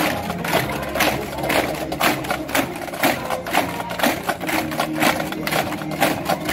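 Marching parade music: a steady snare-drum beat of about two strong hits a second over held low band tones.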